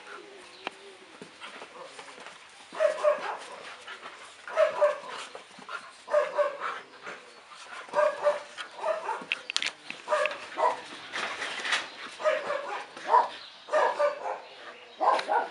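Dogs play-fighting, with short barks repeated about once a second from about three seconds in.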